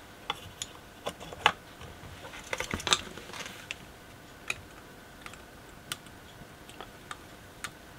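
Scattered small clicks and taps as a circuit board and its new parts are handled and soldered on a workbench, with a quick flurry of clicks about two and a half seconds in.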